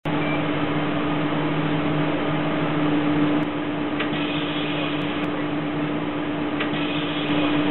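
Steady drone and hiss of a stopped city bus with its engine running, heard through the bus's onboard surveillance camera, with a constant low hum. Two faint clicks come about four seconds and about six and a half seconds in.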